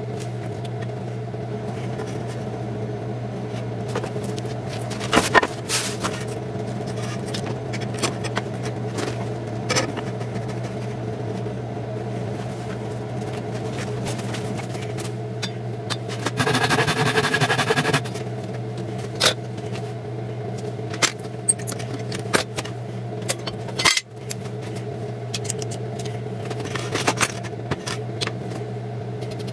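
A steady low machine hum in the workshop, with scattered knocks and clunks as a wooden board and a bar clamp are handled on a steel plate. A rough rasping noise lasts about two seconds, about sixteen seconds in.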